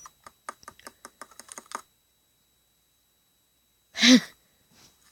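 A quick run of about a dozen sharp clicks over less than two seconds, then a single short voice-like call about four seconds in.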